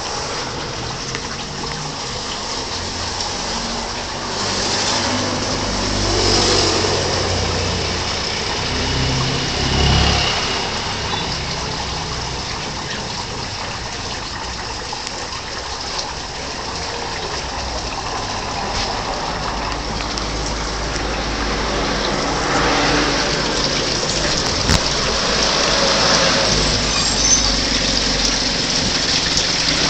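Water pouring from a rock grotto and splashing steadily into a fishpond. A low rumble swells briefly twice in the first ten seconds.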